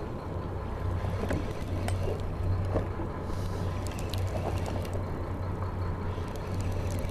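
Fishing boat's engine running at a steady low hum, with faint scattered clicks over it.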